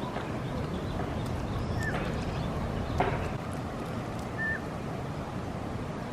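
Outdoor campsite ambience: a steady rushing noise with a few sharp knocks, the loudest about three seconds in, and a couple of brief high bird chirps.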